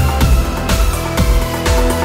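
Electronic background music with a steady beat, about two beats a second, over a bass line.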